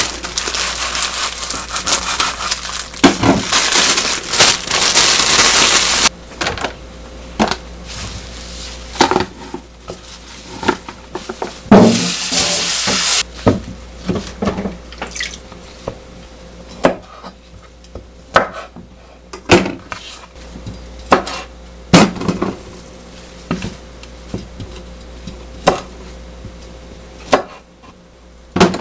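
Kitchen tap water running into a sink for about six seconds, and again briefly near the middle. In between and after come scattered clinks and knocks of dishes and utensils being handled.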